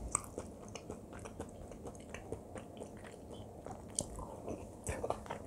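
Close-miked chewing and mouth clicks of a person eating kimchi fried rice with Spam. A spoonful goes into the mouth about four seconds in, and the chewing clicks come more often near the end.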